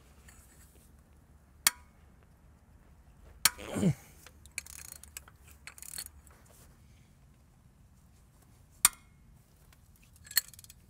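A few sharp metal clinks, seconds apart, from a combination wrench with a steel pipe slipped over its handle for leverage, as tight 17 mm bolts are worked loose.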